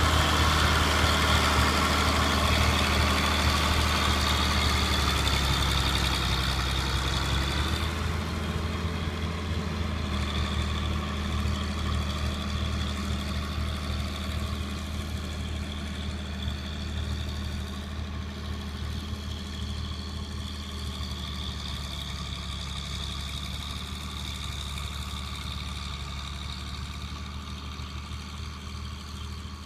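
John Deere 4240 tractor's six-cylinder diesel engine running steadily under load while pulling a five-furrow reversible plough, with a high whine over the low engine note. The sound fades steadily as the tractor moves away.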